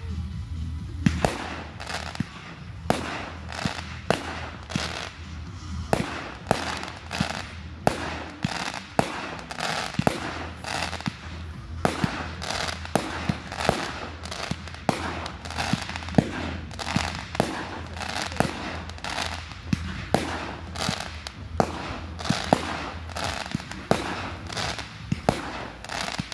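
Fireworks display: aerial shells launching and bursting in quick succession, a sharp bang about every second, each trailed by crackling from the glittering stars.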